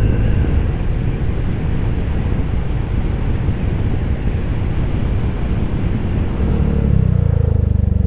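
Honda Giorno 160 scooter riding along, heavy wind rumble on the microphone over the engine, with the engine's steady note coming through more clearly in the last second or two.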